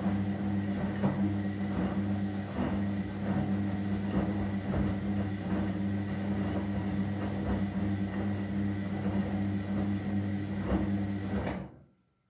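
Front-loading washing machine tumbling a very sudsy main-wash load of tea towels: a steady motor hum with water sloshing and wet laundry thudding irregularly in the drum. The drum stops suddenly near the end.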